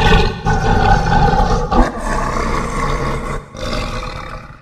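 Tiamat kaiju roar sound effect: a long, harsh monster roar with a deep rumble beneath a pitched cry. It dips briefly a few times and cuts off shortly before the end.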